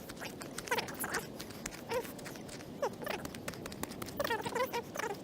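Short electronic metal-detector beeps, repeated several times and wavering slightly in pitch, over scraping and clicking of digging in soil. The beeps are the signal from a buried target, here a lead bullet.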